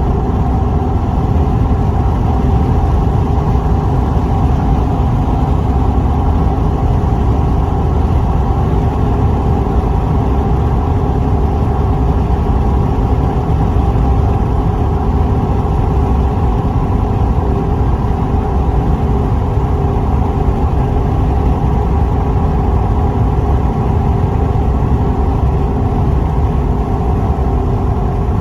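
Steady wind sound effect: a loud, unbroken low rumble with faint held tones above it, unchanging throughout.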